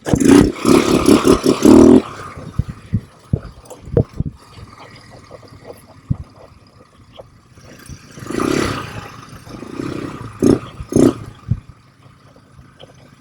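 ATV engine revving in surges, loudest in the first two seconds and again near the end, with scattered knocks and rattles from the machine over a rough trail.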